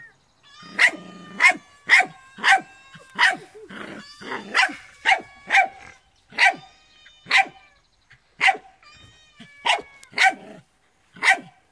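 Small puppy barking over and over, about a dozen sharp barks, at a fake cat toy held up in front of it.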